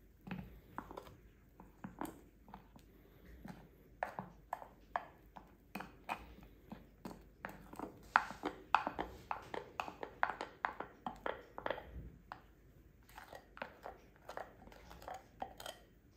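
Irregular clicks and taps of a utensil against a dish, coming thickest around the middle.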